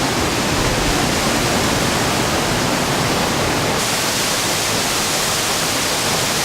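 Waterfall: a steady, loud rush of falling water, its hiss turning brighter about four seconds in.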